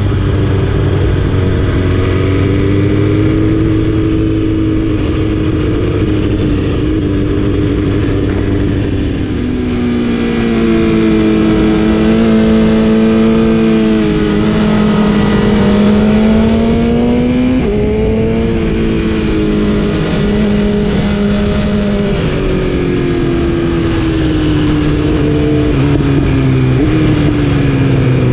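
Motorcycle inline-four engine, a BMW S1000RR through an Akrapovic exhaust, running under way with its pitch rising and falling as the throttle is opened and eased. About two-thirds of the way through, the pitch jumps abruptly.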